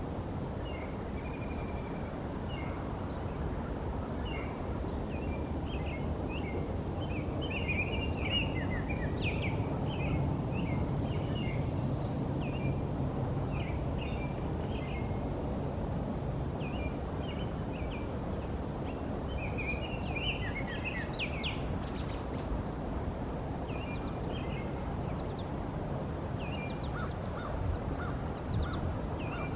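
Several birds chirping and calling in short, scattered notes over a steady low background rumble, with the calls thickest in the middle and again near the end.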